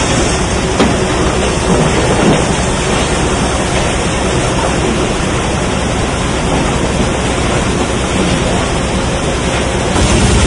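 Sawmill conveyors and machinery running: a loud, steady, dense noise with a few light knocks in the first couple of seconds. It grows louder near the end.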